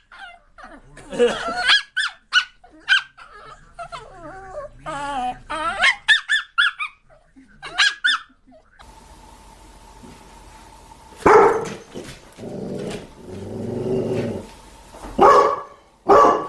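A dog barking and growling in repeated short bursts, with some drawn-out, wavering calls among them.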